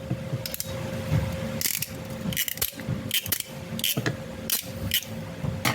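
Irregular sharp clicks and snaps, about eight over several seconds, from a crimping tool and an RJ45 connector being handled while crimping a LAN cable, over a steady low hum.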